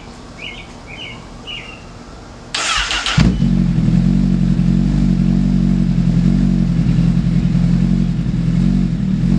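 A few bird chirps, then the starter cranks briefly on a warm 2008 Honda CBR1000RR and its inline-four catches about three seconds in. The engine settles into a steady idle through a DanMoto aftermarket exhaust.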